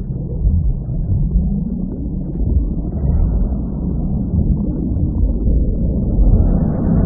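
Deep, muffled rumble of a film soundtrack, with only the low end coming through. It brightens gradually in the last couple of seconds as a rising build-up.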